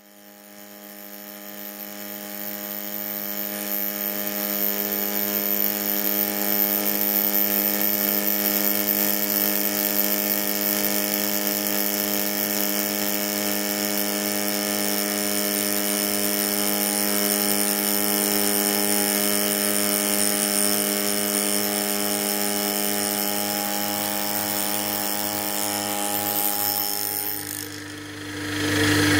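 Homemade two-insert carbide milling cutter cutting a shoulder in cold-rolled steel at 2900 RPM, a steady, even pitched machining whine that rises in over the first few seconds. It is cutting smoothly in climb milling. The tone drops away near the end.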